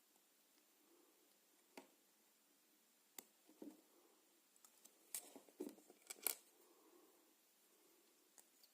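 A handful of faint, sharp clicks and taps of small metal parts being handled, clustered around the middle: homemade spring-steel pawls being fitted into a BMX hub driver.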